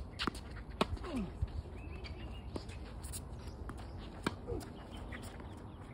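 Scattered sharp knocks of tennis balls on a court and racquets, the loudest about a second in and another a little after four seconds, with a few short falling squeaks.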